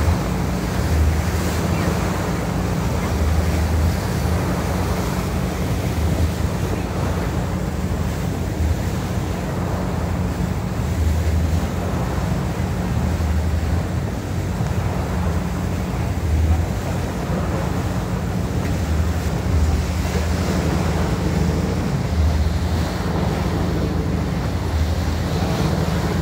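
Wind blowing on the microphone over rushing sea water, with a boat's engine running steadily underneath.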